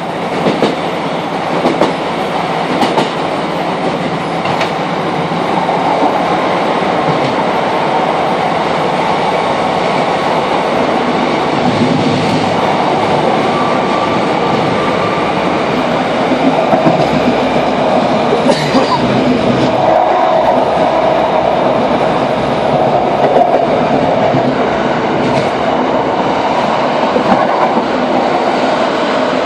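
Interior of a Class 156 diesel multiple unit underway at speed: a steady rumble of engine, wheels and rails, with a few clicks of wheels over rail joints. It gets louder and more boxed-in from about six seconds in as the train runs through a tunnel.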